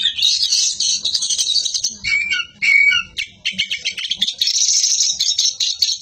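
Oriental magpie-robin singing a fast, dense run of scratchy, chattering notes, with a few short clear whistled notes about two seconds in.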